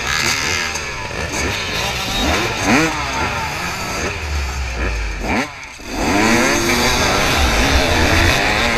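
Dirt bike engines revving, with repeated quick rising sweeps of throttle blips from several bikes overlapping. About five and a half seconds in the sound briefly drops, then an engine revs up and holds higher.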